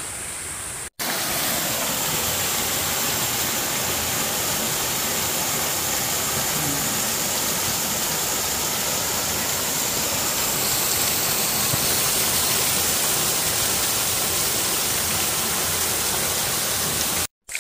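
Small waterfall splashing steadily onto rocks and into a pool: an even, constant rush of falling water, broken by two brief silent gaps about a second in and just before the end.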